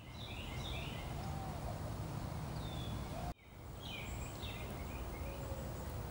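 Small birds chirping in short, falling calls over a steady low background rumble, with a sudden break a little over halfway where the sound cuts out and returns.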